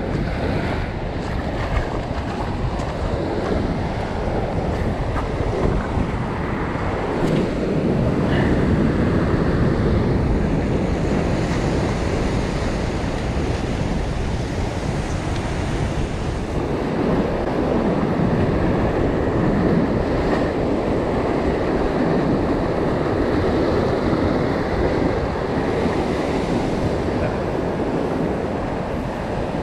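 Ocean surf washing and breaking over a rock ledge, with wind buffeting the microphone. The wash swells up about a quarter of the way in, and again for much of the second half.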